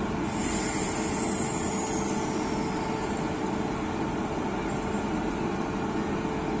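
Express train with LHB coaches rolling out of the station: a steady rumble of wheels on track, with a faint high squeal that slides down in pitch about half a second in.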